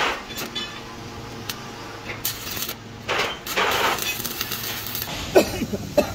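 Stick (arc) welding on a steel gear blank: the electrode's arc crackling and hissing in bursts, loudest for about a second just past the middle. A couple of sharp knocks near the end.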